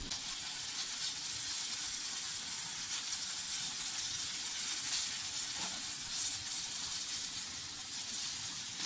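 Flour-dredged quail breasts frying in oil in a skillet: a steady sizzle.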